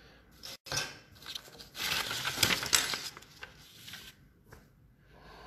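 Paper instruction sheets of a plastic model kit rustling and crinkling as they are handled and turned over, loudest around two to three seconds in, with a few sharp paper snaps.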